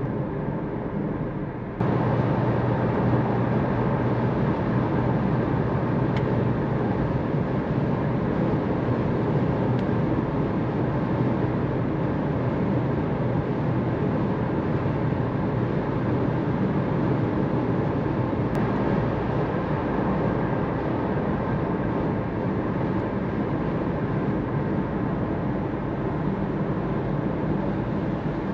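A Jeep Avenger's 1.2 turbocharged three-cylinder petrol engine and road noise while driving, a steady drone. It jumps suddenly louder about two seconds in.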